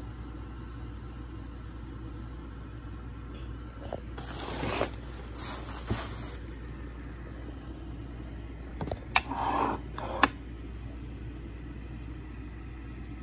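Steady low hum, broken by two short spells of scraping, rustling noise, the first about four seconds in and the second, with a few sharp clicks, about nine seconds in.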